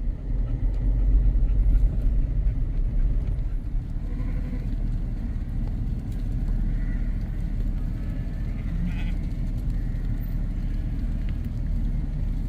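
Off-road vehicle driving over a rough dirt road, a steady low rumble of engine and tyres heard from inside the cab, loudest in the first couple of seconds.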